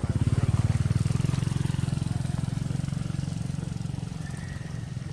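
Engine of a motor vehicle going by, a fast low putter that is loudest in the first second and a half and then slowly fades away.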